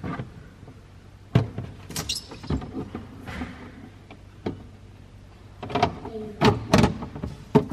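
Plastic produce-keeper container being handled on a refrigerator shelf: scattered clicks and knocks as it is slid forward and its lid is lifted off and set back on, with a cluster of clicks near the end.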